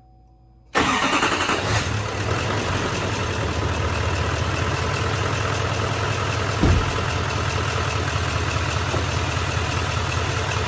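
Duramax L5P 6.6-litre V8 turbodiesel starting a little under a second in and settling straight into a steady idle, with one brief low bump a little past halfway.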